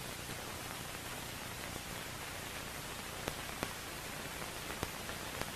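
Steady hiss with a few faint clicks: the background noise of an old film soundtrack between spoken lines.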